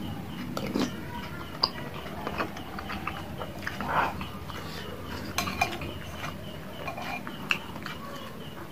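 Close-up chewing of a mouthful of bakso (Indonesian meatball), with a metal spoon clinking and scraping against a ceramic soup bowl in short scattered clicks.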